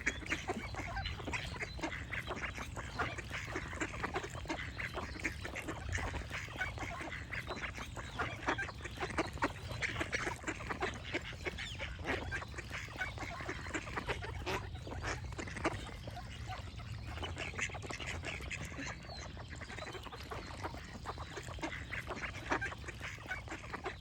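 A group of ducks calling continuously, with many short, overlapping quacks and honk-like calls. A steady low rumble runs underneath.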